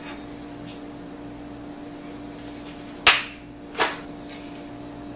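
A knife cutting open a plastic-wrapped tray of chicken on a plastic cutting board. There are two sharp snaps about three seconds in, less than a second apart, and the first is the loudest, with a few light clicks around them.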